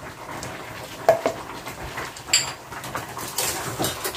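Kitchen clatter: a small bowl tapped against a plastic blender jar and the jar set down on its base, a few separate sharp knocks over a steady hiss.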